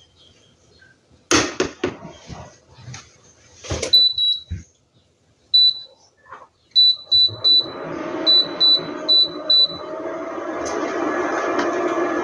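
Knocks and clatter of cookware being handled on an induction cooktop, then a series of short high beeps from the cooktop's touch buttons as it is switched on and set. From about halfway, the induction cooktop's cooling fan starts and runs with a steady hum.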